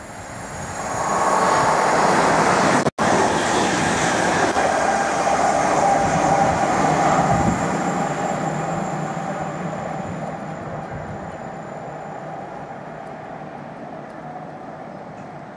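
Train passing along the line. It grows loud over the first two seconds, runs with a steady whine over the rolling noise, then slowly fades away.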